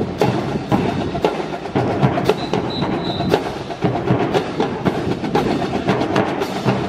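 Drill rifles clacking and slapping as a squad handles them in unison during a rifle drill: a rapid, uneven run of sharp wooden knocks.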